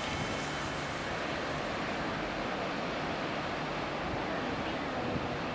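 Sea surf washing in, a steady rushing noise with wind on the microphone.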